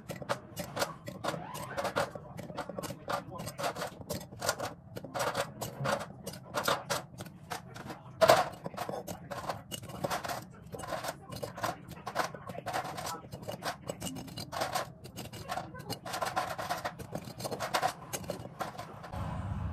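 Metal kitchen tongs clicking and pieces of crisp toasted bread clattering into a glass jar: a steady run of small clinks, taps and scrapes, with one louder knock about eight seconds in.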